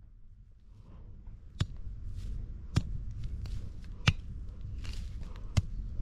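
Three-prong hand cultivator raking through dry sugarcane peelings on grass: a light scratchy rustle with four sharp clicks, a little over a second apart.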